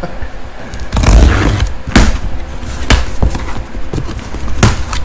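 Several sharp thumps and knocks, with a scraping rustle about a second in, from things being handled and moved about.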